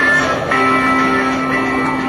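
Music with guitar, laid over the footage in place of the live jet sound.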